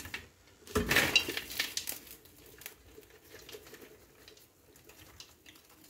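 Caramel-coated popcorn tipped from a metal pot onto a round metal tray: a knock and a burst of rattling about a second in, then scattered light ticks and rustling of popcorn pieces.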